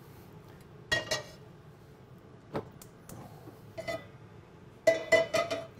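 Stainless steel pans clanking on the grates of a gas cooktop as they are moved and set down. There is one ringing clank about a second in, a few lighter knocks, then a quick run of clanks near the end.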